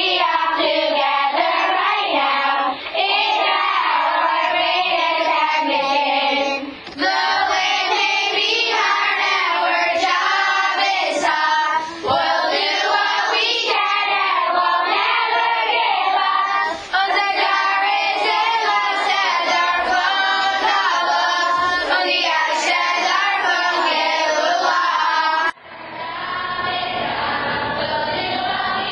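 A group of young girls singing together. The recording breaks off and picks up again several times, with a change in sound quality near the end.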